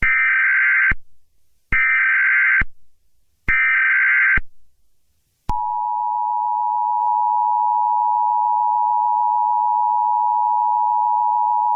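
Emergency Alert System SAME header: three loud bursts of screeching digital data tones, each about a second long. About five and a half seconds in, the steady two-tone EAS attention signal starts.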